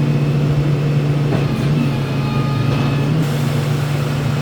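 A vehicle engine running steadily, a constant low hum.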